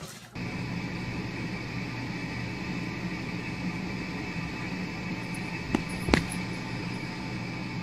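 Steady background hum with hiss, broken about six seconds in by two short thumps close together as a cat swats at a sleeping dog on a bed.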